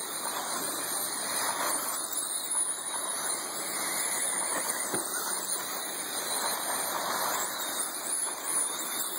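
Several electric RC dirt oval race cars running, their motors giving a high-pitched whine that rises and falls as they speed up and slow through the turns, over a steady haze of noise.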